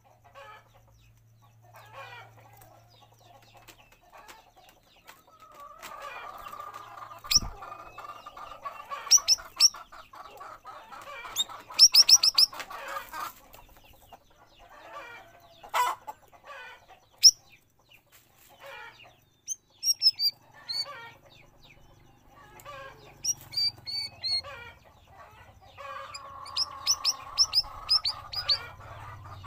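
Cucak rawis songbird calling in bursts: scattered quick high chirps and sweeping notes, with fast runs of rapid notes about twelve seconds in and again near the end, over a rougher chatter.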